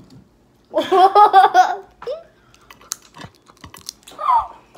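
A child giggling in a quick run of laughs, then scattered crisp crunches and clicks of chewing a hard taco shell, with a short vocal sound near the end.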